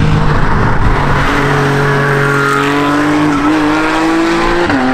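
Porsche race car passing and accelerating away out of a corner, its engine note climbing steadily in pitch, then dropping sharply with an upshift near the end.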